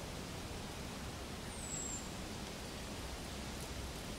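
Steady outdoor background hiss, with a single high, thin whistle that slides downward, about one and a half seconds in.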